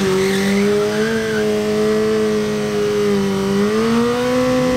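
Suzuki GSX-R1000 inline-four engine held at steady high revs during a burnout, the rear tyre spinning on the spot. The note stays level, then rises a little near the end.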